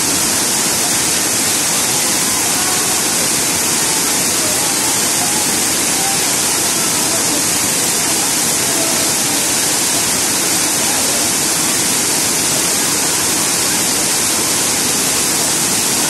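Waterfall cascading over rock at close range: a loud, steady rush of falling water and spray.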